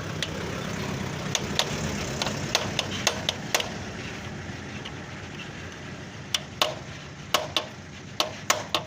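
Short sharp metallic clicks and taps of hand tools on motorcycle engine parts, scattered at first and coming closer together in the second half, over a low steady hum that fades about halfway.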